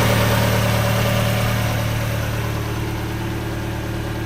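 Mazda Miata's four-cylinder engine idling smoothly and steadily, just after a fresh oil change; "purring like a kitten".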